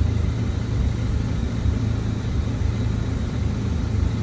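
2009 Mini Cooper's 1.6-litre four-cylinder engine idling with a steady low rumble and slightly uneven pulses, while it is misfiring at idle only.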